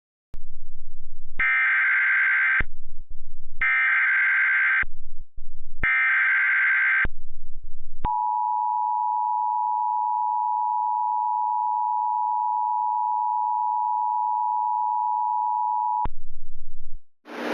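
Emergency Alert System header: three bursts of SAME digital data tones, each about a second long with a low buzz between them, then the two-tone EAS attention signal held steady for about eight seconds.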